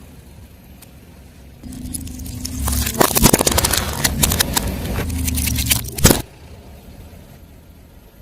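Car engine running as a tyre rolls over and crushes crunchy objects, with a rapid run of cracks and crunches starting about three seconds in. It all stops abruptly a little after six seconds.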